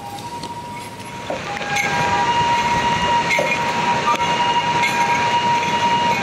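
Procession wind music: a high pipe note is held almost throughout, with shorter notes above it starting and stopping, over a steady rushing noise of surf and rain that swells about a second and a half in. Light clinks recur about every second and a half.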